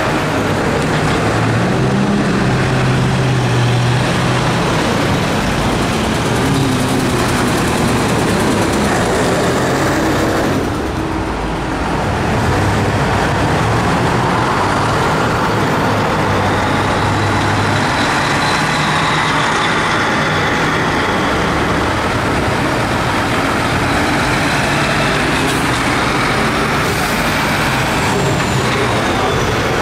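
Heavy diesel trucks driving slowly past at close range one after another, their engines running steadily, with a brief dip in level about a third of the way through.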